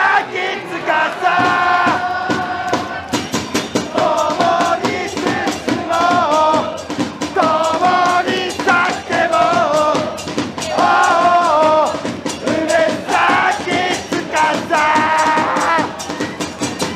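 Football supporters' crowd singing a chant in unison, with a drum beating steadily from about three seconds in.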